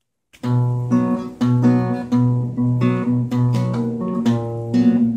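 Acoustic guitar strumming chords in a steady rhythm, starting about half a second in.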